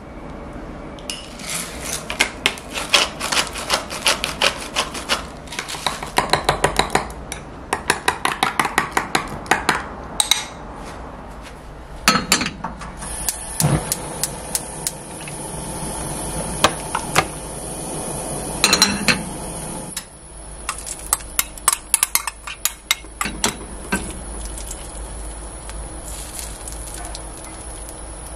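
Eggs being beaten in a glass bowl: a fast, dense run of clinking strokes for several seconds. Then a few knocks as the frying pan goes on the gas hob, and a steady high sizzle from the hot pan with scattered clinks of a utensil as the egg mixture cooks.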